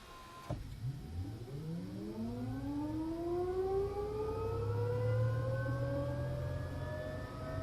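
Learjet jet engine starting, heard from inside the cabin: a click about half a second in, then a whine that rises smoothly in pitch as the engine spools up and levels off, with a low rumble building beneath it.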